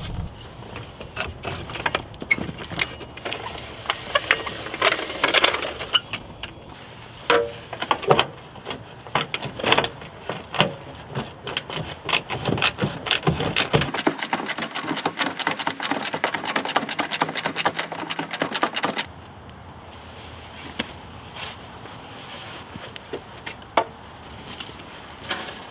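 Hand tools working on an old car: irregular metallic clanks, knocks and rattles. About two-thirds of the way through there is a run of rapid clicking that stops abruptly, followed by quieter, scattered knocks.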